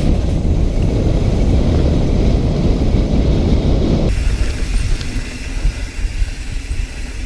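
Mountain bike riding down a dirt trail, heard through an action camera: heavy wind buffeting and trail rumble. About four seconds in it cuts to a quieter stretch of riding with a faint steady hum.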